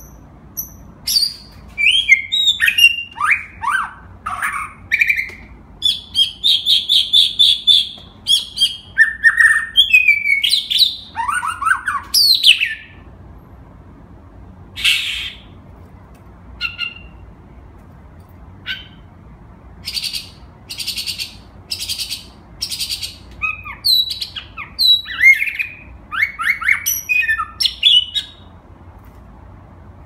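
White-rumped shama singing in bursts of varied whistled phrases, with falling glides and rapid trills, broken by a lull of a few seconds midway.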